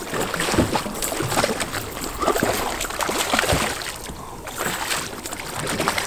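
Irregular splashing as a hooked bluefish thrashes at the water's surface beside a boat, over a steady wash of water noise.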